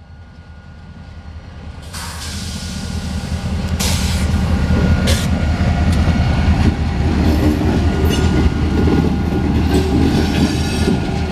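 Diesel locomotives of a CSX freight train approaching and passing close, their engine rumble growing louder over the first few seconds and then staying steady, with several sharp clanks from the wheels on the track.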